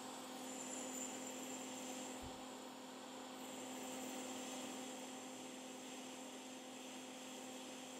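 Faint, steady hum with a soft hiss of blowing air: a hot air rework station's blower running while the capacitor's solder is heated for removal.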